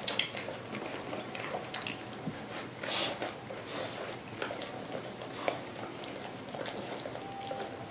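Three-week-old American Water Spaniel puppies wrestling: scuffling against one another and mouthing and biting, with many small clicks and snaps.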